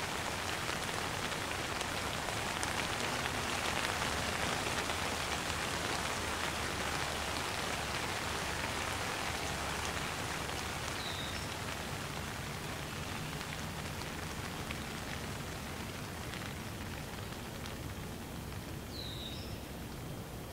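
Light rain falling steadily: a dense, even patter with scattered individual drops, easing slightly in the second half.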